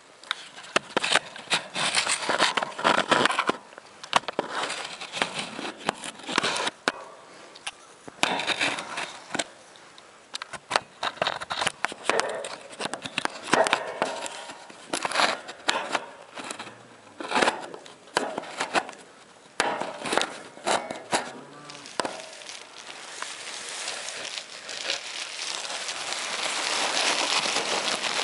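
Straw bedding rustling and crackling in irregular bursts, mixed with handling noise from a handheld camera, during an assisted calving. Near the end it becomes a steadier, louder rustle.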